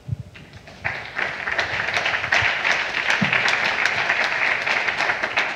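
Audience applauding, building up about a second in and continuing steadily.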